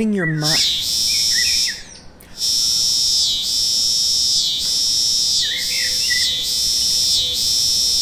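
Loud cicada song: a steady, high-pitched buzz that breaks off for a moment about two seconds in, then resumes and swells and dips about once a second. A few faint bird chirps sound underneath.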